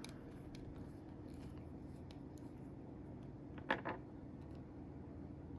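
Small parts of a disassembled Ontario RAT 1 folding knife being handled on a work surface: scattered light clicks, with one louder double clack a little past the middle, over a low steady hum.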